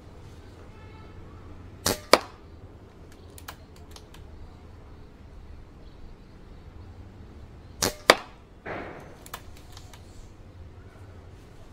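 Two shots from an Evanix Vortex .177 air rifle fired with 20-grain slugs, about six seconds apart. Each shot is a pair of sharp cracks a quarter second apart. After the second shot there is a brief rustle and a few fainter clicks.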